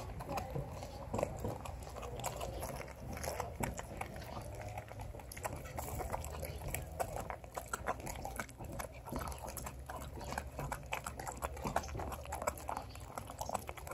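German shepherd chewing a raw chicken leg quarter, with frequent sharp crunches and clicks as it bites through it.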